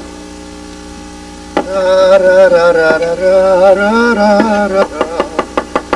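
A man singing a long, wavering phrase with no clear words. Near the end, a chef's knife chopping vegetables on a wooden cutting board starts again, about five strokes a second.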